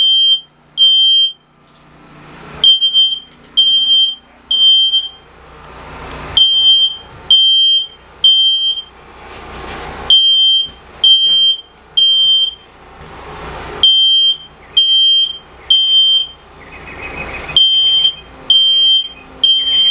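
Smoke alarm sounding in its three-beep pattern: groups of three shrill beeps, each about half a second long, with a short gap, repeating about every four seconds. It has been set off by smoke from the fire burning beside it.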